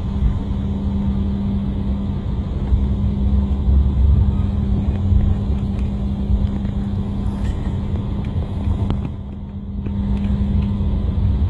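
Cabin noise of an aircraft taxiing: a steady engine hum over a low rumble, dipping briefly about nine seconds in.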